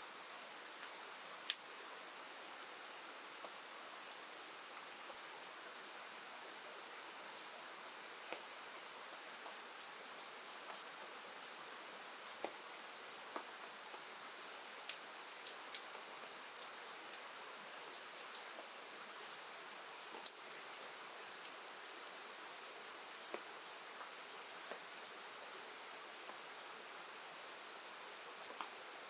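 Steady hiss of rain and river water, with scattered sharp ticks every second or two.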